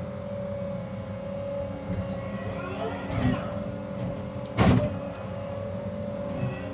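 Cat 306 excavator's diesel engine running steadily with a constant whine. A stretch of scraping and rustling comes about three seconds in, and a single loud sharp crack about four and a half seconds in.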